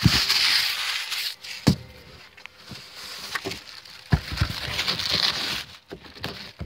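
Rustling and rubbing handling noise from a phone camera being fumbled in the hand, with a few sharp knocks.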